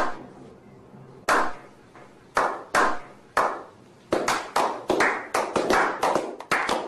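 A group of men clapping together in a slow clap: single echoing claps spaced more than a second apart at first, speeding up into a quicker, steady clapping about halfway through.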